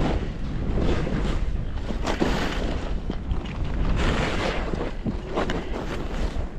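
Skis hissing and scraping over bumpy snow in a series of uneven swooshes, with wind rumbling on the microphone.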